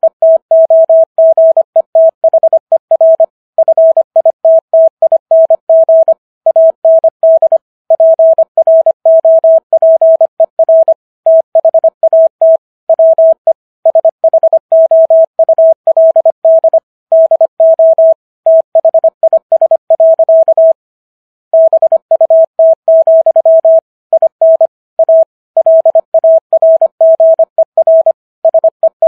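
Morse code at 25 words per minute: a single steady beep keyed on and off in quick dots and dashes with short gaps between words, sending the text of the Gettysburg Address for copy practice. There is a pause of about a second around two-thirds of the way through.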